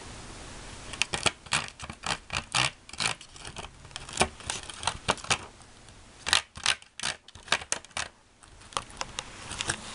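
Quick, irregular plastic clicks and taps of a small spoon against a Popin' Cookin' candy kit's plastic tray as candy mix and water are stirred in it. The clicks start about a second in and thin out near the end.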